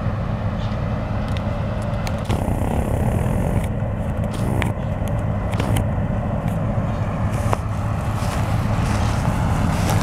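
Combine harvester's diesel engine and threshing machinery running steadily as it cuts wheat: a constant low drone, with a few faint clicks on top.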